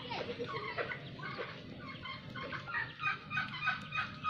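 Chickens clucking: many short, repeated calls, busiest in the second half.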